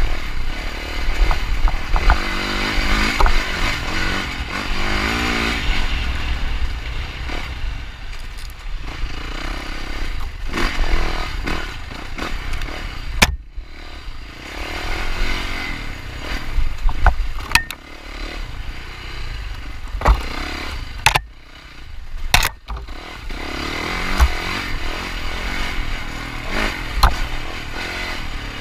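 Yamaha 450 single-cylinder four-stroke dirt bike engine revving up and down as it is ridden over rough trail, with sharp knocks and clatter from the bike striking obstacles. The throttle drops off briefly a little past two-thirds of the way in.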